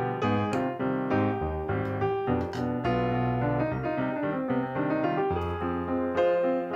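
Background piano music: quickly changing notes over held bass notes.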